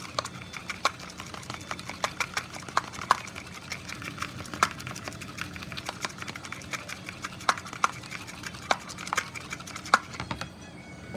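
Irregular sharp clicks and taps, a few each second, as food is mixed by hand in a plastic bowl and a utensil knocks against its sides.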